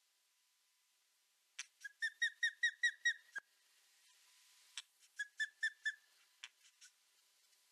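Osprey calling: a run of about seven sharp, whistled notes at roughly five a second, then after a short pause a shorter run of about five.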